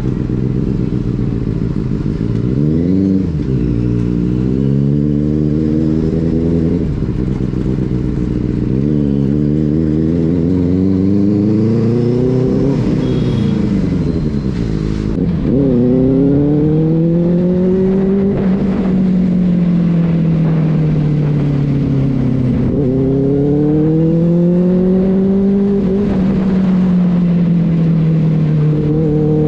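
Benelli 600i inline-four motorcycle engine running under way, its pitch rising and falling over and over as the throttle opens and closes through the gears, with a few sudden dips in pitch.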